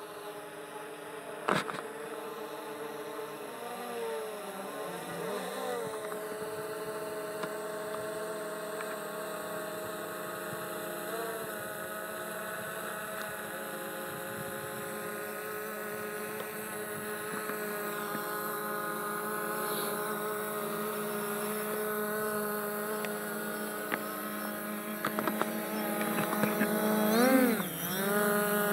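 FiMI X8 SE quadcopter's propellers humming as it descends to land, a steady whine of several tones that grows louder as it comes down. The pitch wobbles briefly a few times, most strongly near the end, as it corrects its position. A sharp click about a second and a half in.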